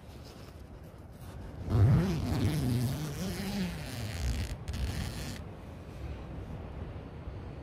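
A zip being drawn and fabric rustling for a few seconds, starting about two seconds in, with a short break near the end. Under it a man makes a low wordless sound, a groan or hum.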